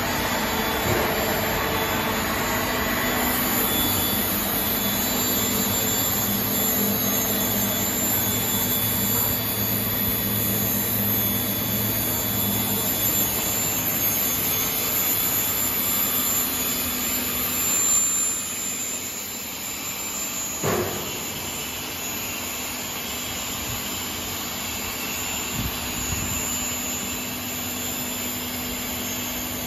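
Steady running noise of a polypropylene melt-blown filter cartridge production line, a constant machine hum with a few high tones over it. A brief short sound stands out about two-thirds of the way through.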